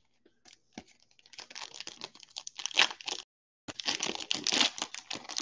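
Trading-card pack wrapper being torn open and crinkled, in quick crackly rustles that start about a second in and break off briefly about three seconds in.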